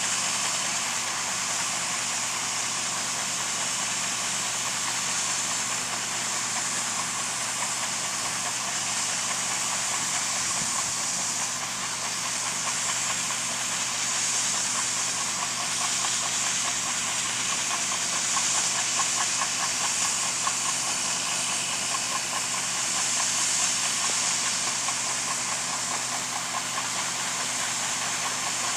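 John Deere harvest machinery running steadily: a constant engine hum under a loud, even hiss.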